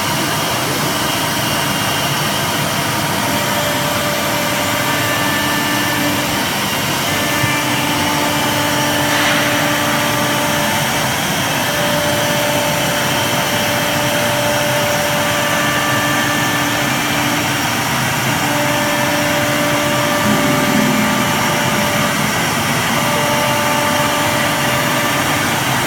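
1325 CNC wood router with three pneumatic spindles running: a steady, loud machine rush, with short steady tones at changing pitches that come and go every second or few.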